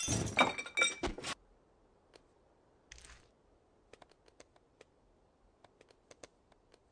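A crash of something shattering, with clinking pieces, cutting off sharply about a second and a half in. After it come a few faint scattered clicks and a brief scrape.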